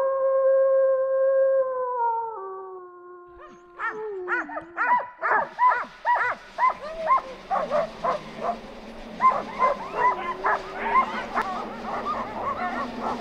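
Sled dogs howling and barking. A long howl steps down in pitch over the first few seconds, then, about four seconds in, many dogs break into a dense chorus of quick, excited barks and yips, the usual clamour of a sled-dog team eager to run as it is hooked up.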